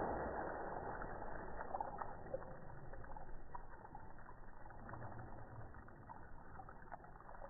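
Slowed-down, muffled sound of water spilling and dripping from plastic bottles just pierced by a razor-tipped dart: a fading wash with scattered faint ticks.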